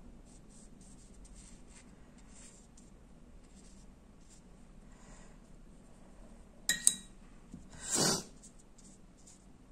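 Soft brush strokes on watercolour paper. Then a paintbrush clinks twice against a glass water jar, with a brief ring, about seven seconds in. A short swish follows about a second later, the loudest sound in the clip.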